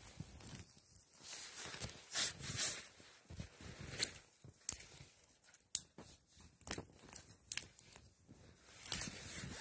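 Small fire of dry spruce twigs crackling with sharp, irregular pops and a few short rustling hisses as it smoulders and struggles to catch.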